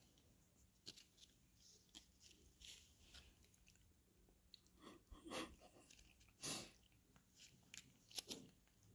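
A long-haired cat licking a creamy treat from a squeeze tube: faint, irregular wet licks and smacks, a few of them a little louder.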